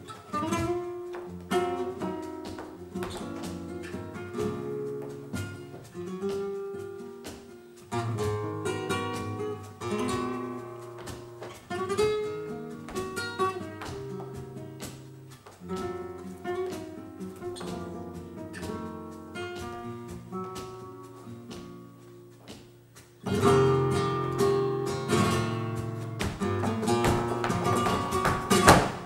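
Flamenco guitar played live: picked melodic lines, breaking into louder, denser strumming about two-thirds of the way through.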